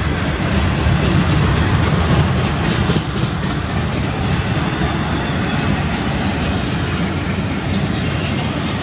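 Double-stack container well cars of a freight train rolling past close by: a steady rumble of steel wheels on the rails.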